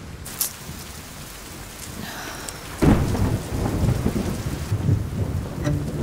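Steady rain, with a low rumble of thunder that starts suddenly about three seconds in and keeps rolling. A small sharp click comes just after the start.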